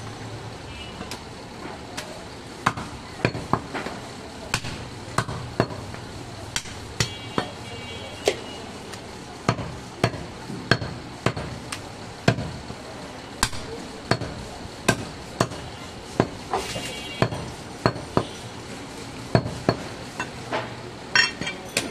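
Heavy butcher's cleaver chopping goat meat and bone into pieces on a wooden log chopping block: a long series of sharp chops, irregularly spaced at about one to two a second.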